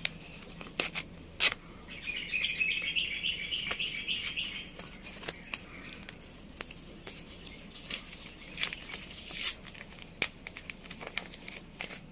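Foil-lined paper seed packet being torn open and crinkled by hand: scattered crackles and rips, with a longer rasping tear about two seconds in.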